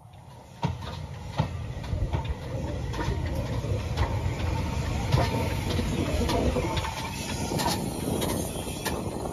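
BR Standard Class 4 tank steam locomotive rolling slowly past at close range, bunker first, with a low rumble and irregular clanks from its wheels and motion on the track. The sound rises sharply about half a second in.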